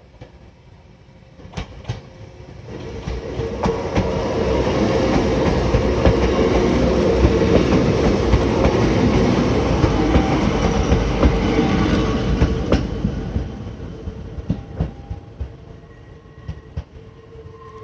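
Hakone Tozan Railway 'Allegra' electric train passing over a level crossing. The rumble and the clicks of its wheels build over a couple of seconds, stay loud for about eight seconds, then fade away.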